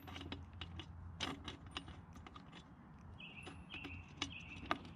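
Scattered light metallic clicks and small knocks as a new spark plug is threaded by hand into the cylinder head of an Echo PE-2000 two-stroke edger.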